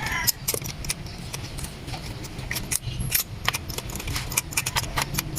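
Light, irregular metallic clicking of a 3/8-inch ratchet on a 14 mm spark-plug socket, as new spark plugs are run down until they seat.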